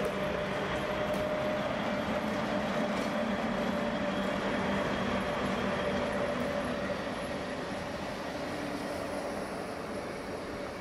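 A train running: a steady running noise carrying a held tone, easing off slightly in the second half.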